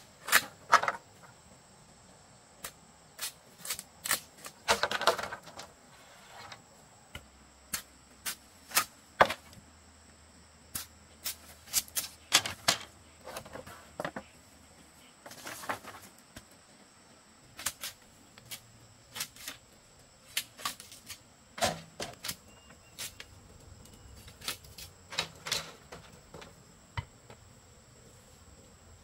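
Bamboo being worked by hand: sharp knocks and taps at an irregular pace, roughly one or two a second, with a couple of brief scraping sounds among them.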